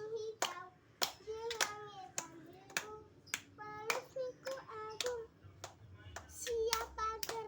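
A young child singing in a high voice, with sharp hand claps about twice a second.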